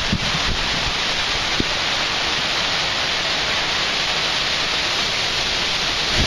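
Hurricane rain and wind making a steady, even hiss, with little of the microphone buffeting heard in the gusts either side.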